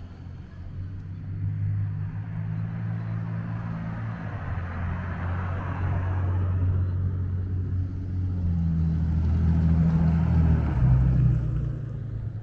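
Cars passing on the street alongside, with engine hum and tyre noise. One goes by about halfway through, and a louder engine builds up near the end.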